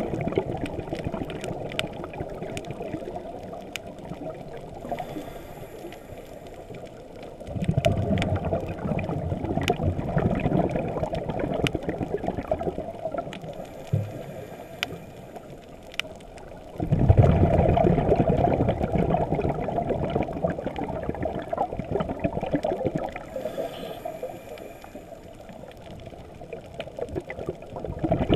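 Underwater recording of a diver breathing through a scuba regulator. A faint hiss on each inhalation is followed by a loud, low rush of exhaled bubbles, repeating about every ten seconds.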